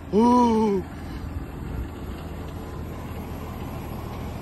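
A man's voice gives one short drawn-out note that rises then falls, under a second long, over the steady low rumble of an idling semi truck's diesel engine, which carries on alone afterwards.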